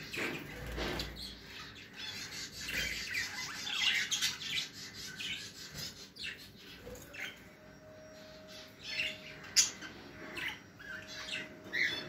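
Caged budgerigars and other pet birds chirping and squawking in many short, high calls, with one sharp click a little under ten seconds in.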